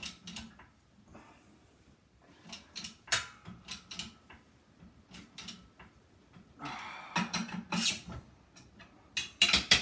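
Irregular metal clicks and knocks from a hand-pumped bottle-jack shop press forcing a stainless steel sheet into a forming die, with one sharp strike about three seconds in and denser clusters about seven seconds in and near the end.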